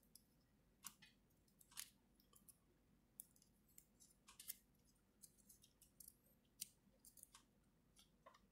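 Faint, irregular plastic clicks and light rubbing as a 3D-printed Whirl action figure's parts are handled and fitted together.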